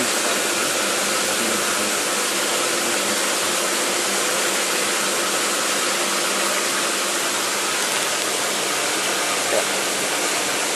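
Steady rush of running water with a constant motor hum underneath, from a fish tank's water pump.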